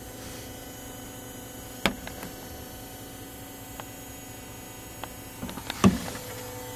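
Steady low electrical hum, with a sharp knock about two seconds in and a louder cluster of knocks near the end.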